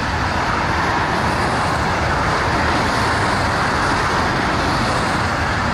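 Airbus A380 jet engines running with a steady rushing noise as the airliner turns on the runway.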